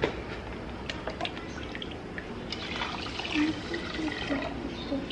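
Water scooped with a plastic pitcher from a plastic storage drum and poured into a metal pot, splashing and trickling, with a few light clicks and knocks.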